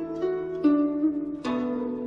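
Background music of plucked string notes, struck one after another a few times and left to ring.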